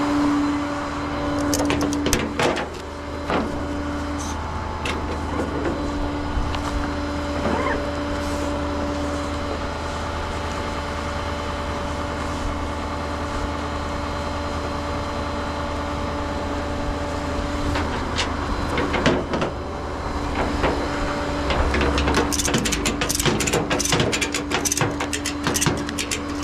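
Tow truck engine running steadily with a constant whine over a low hum, with scattered clicks and knocks, more of them near the end.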